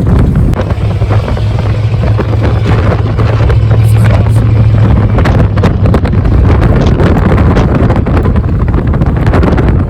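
1982 Ford F-150's 302 V8 running at low rpm through a loud 3-to-4-inch step exhaust while driving, a steady low drone, with wind buffeting the microphone.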